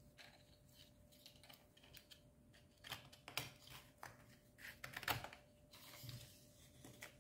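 Faint scattered clicks and short scrapes of a sandpaper belt being handled and slipped over the plastic skate-wheel rollers and metal frame of a homemade belt sander, with the motor switched off.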